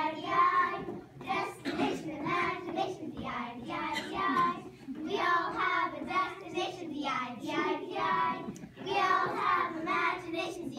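A group of children singing a chant together in rhythmic phrases.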